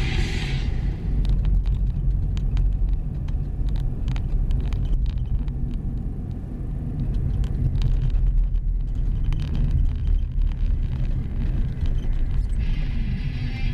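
Car driving on snowy streets, heard from inside: a steady low rumble of engine and tyres, with scattered short clicks and knocks throughout. Music fades out about half a second in and comes back near the end.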